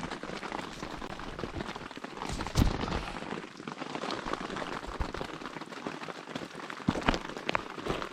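Steady rain falling, with a few sharp knocks, the loudest about two and a half seconds in and another about seven seconds in.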